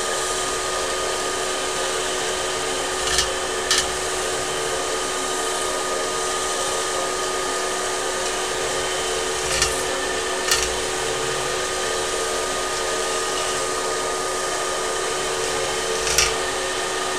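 Aluminium metal-spinning machine running as a pot blank turns on its mandrel under the forming rollers: a steady mechanical hum with a few held pitches. It is broken by five short, sharp knocks, two close together about three seconds in, two around ten seconds and one near the end.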